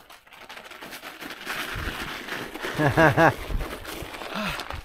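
Crunching, crinkling noise, with a man's brief voice of three quick syllables about three seconds in.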